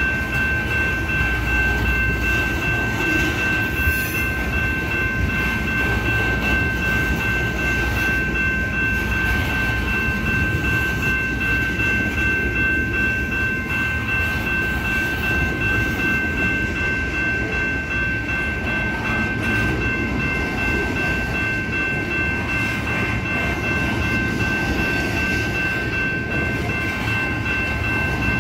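Union Pacific freight train running on the rails: a steady rumbling noise, with a steady high-pitched whine over it.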